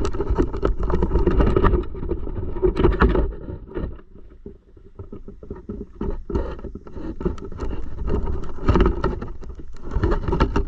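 Handling noise on an action camera's microphone: rubbing, low rumbling and many small clicks and knocks as the camera is held and set down.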